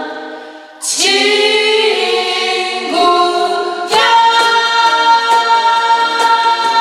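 A group of voices singing long held chords, a new chord entering about a second in, changing again about three and four seconds in, and the last one held.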